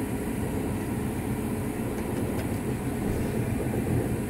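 Steady low rumble of a vehicle on the move, heard from inside the cab: engine and road noise with no distinct knocks or tones.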